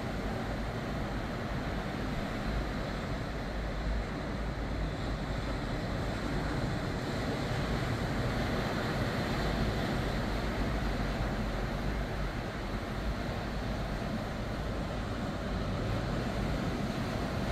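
Ocean surf breaking on a beach: a steady wash of noise with a low, uneven rumble beneath it.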